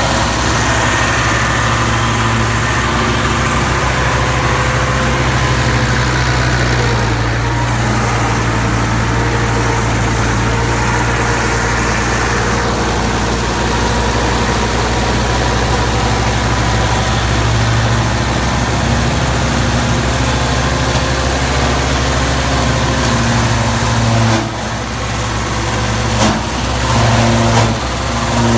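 Tractor-driven wood crusher grinding wood into sawdust, its grinding noise over the steady hum of the tractor's engine. The sound dips and wavers in the last few seconds.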